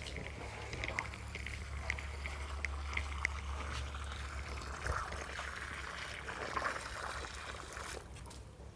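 Water pouring and trickling, heaviest in the second half and stopping near the end, over a steady low hum, with scattered light clicks in the first few seconds.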